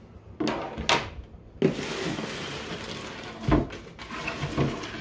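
Handling noise as a chainsaw battery charger is taken out of its cardboard box and set on a wooden table: four knocks and a stretch of rustling.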